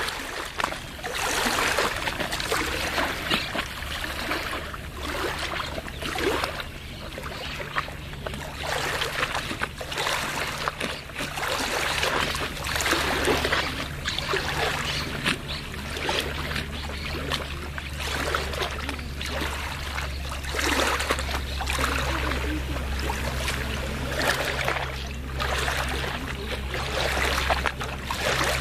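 Small waves lapping and splashing against the lagoon's shore in an irregular wash every second or two, over a steady low rumble.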